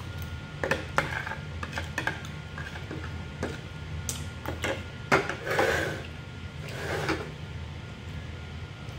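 Metal forks clicking and scraping against a plate as the last noodles are scooped up, a run of sharp taps that stops about five seconds in, over a steady low room hum.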